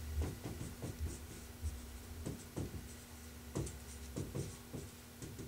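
Dry-erase marker writing on a whiteboard: a quiet run of short, irregular strokes as a line of words is written.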